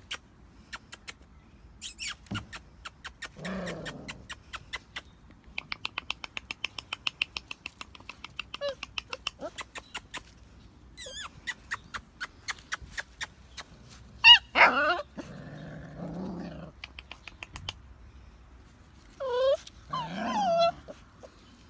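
Alaskan Malamute puppies growling and yipping in play, with short high yelps that bend in pitch. Runs of quick clicks sound through much of it.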